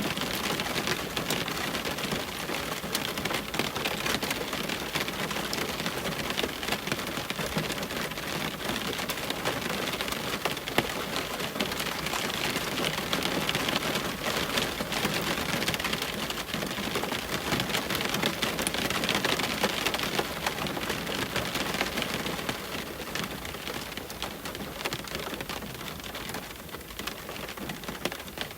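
Steady rain hitting a window pane: a dense, even hiss of countless drop impacts that eases slightly after about three quarters of the way through.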